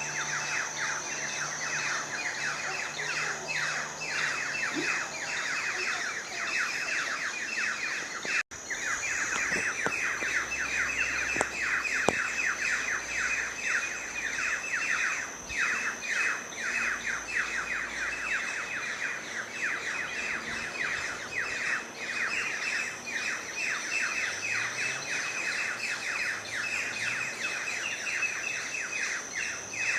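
Dense chorus of many birds calling at once: a continuous chatter of rapid, falling chirps, over a steady high-pitched tone. The sound breaks off for an instant about eight seconds in.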